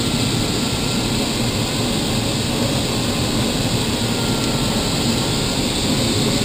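Steady rush of airflow over a glider's canopy in flight, heard from inside the cockpit, with a faint high tone that comes and goes.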